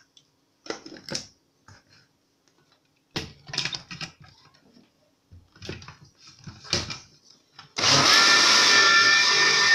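An electric countertop blender starts abruptly near the end and runs steadily at speed with a whine, mixing cake batter. Before that come scattered knocks and clicks as the blender jar and base are handled.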